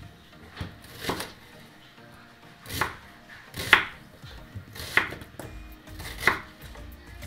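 Kitchen knife chopping an onion into chunks on a wooden cutting board: about six separate cuts at uneven intervals, each ending in a knock of the blade on the board, the loudest about halfway through.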